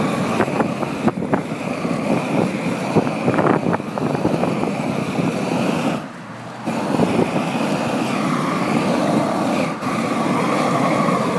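Propane torch burning with a steady roar as it melts thermoplastic road marking onto the pavement. The roar drops away briefly about six seconds in, then resumes.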